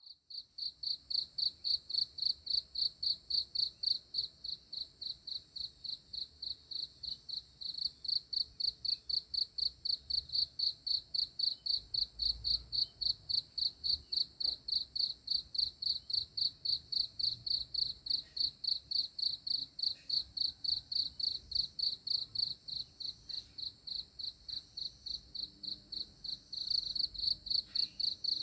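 An insect chirping steadily: a high, even chirp repeated about three to four times a second.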